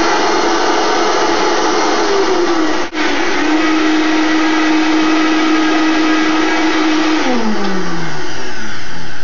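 Vitamix blender motor running steadily through a thick avocado chocolate pudding, with one brief drop-out about three seconds in. Near the end its pitch falls as the motor winds down.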